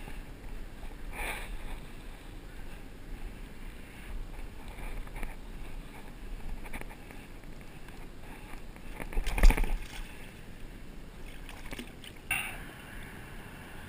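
Water sloshing and splashing as a redfish is handled and lowered back into the water, with wind noise on the microphone. There is one loud sudden thump or splash about two-thirds of the way in, and louder splashing starts near the end.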